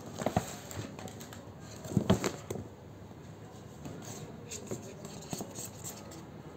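Paper shopping bag rustling and crinkling as a kitten shifts about inside it, in short irregular bursts, loudest about two seconds in, then fainter scattered crackles.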